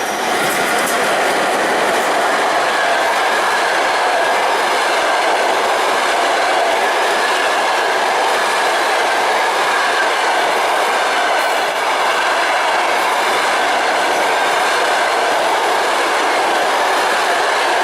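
Passenger train hauled by a ChS7 DC electric locomotive passing close by: a steady, loud rumble of steel wheels running on the rails.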